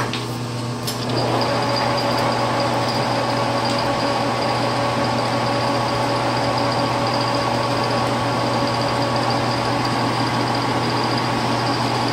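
Metal lathe starting up with a click about a second in. Its spindle, with a four-jaw chuck, then runs steadily with a gear whine made of several steady tones.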